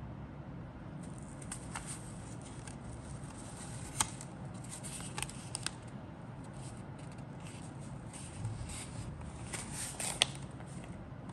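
Paper instruction sheet rustling and crinkling as it is held and bent, with a few sharp crackles, the loudest about four seconds and ten seconds in.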